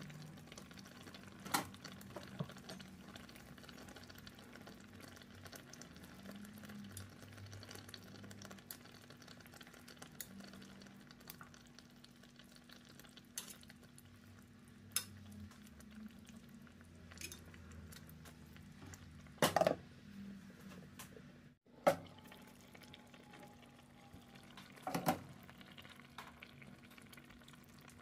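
Chicken pieces simmering in a sauce in a pan, a faint steady bubbling and sizzle. Metal tongs click and clank against the pan now and then as the pieces are turned, loudest in a double clank about two-thirds of the way in.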